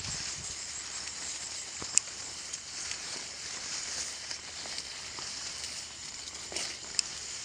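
Jute plants rustling and swishing as people push through the field on foot, over a steady high hiss. Two sharp clicks stand out, about two seconds in and again near the end.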